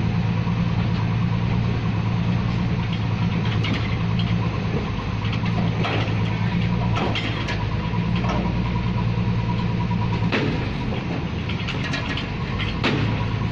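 Engine of a pile-boring drilling rig running steadily, with about five sharp knocks at irregular intervals.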